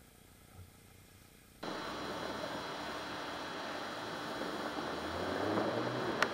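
Near silence, then from about a second and a half in a steady hiss with a Toyota Hilux pickup's engine running underneath as it drives onto a steel ramp, the engine note rising near the end. A sharp click just before the end.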